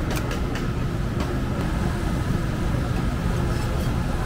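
Street-market background noise: a steady low rumble, with a few sharp clicks in the first second or so.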